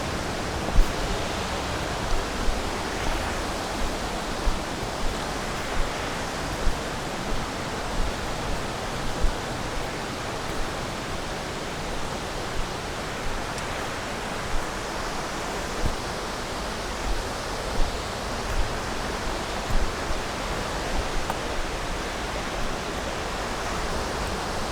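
Waterfall rushing steadily, a dense even roar of falling water. Brief low thumps come every second or so over it.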